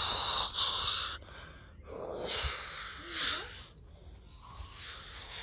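A person making jet-engine whoosh noises with their mouth while flying a toy airliner: a long breathy hiss for about the first second, then several shorter breathy puffs.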